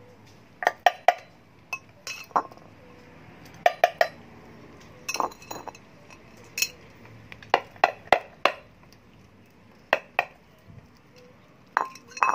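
Stainless steel pet food bowls clinking and knocking against the concrete floor as kittens eat from them: a string of irregular sharp clinks, each ringing briefly.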